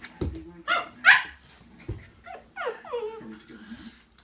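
A dog vocalising during play: two sharp, high yips about a second in, then a whine that falls in pitch, with a couple of dull thumps.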